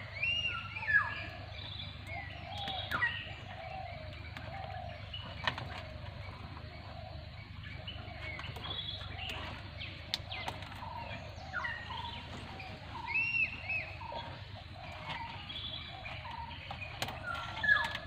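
Birds calling, with short whistled chirps and rising and falling notes scattered throughout, over a steady low background noise and a few sharp clicks.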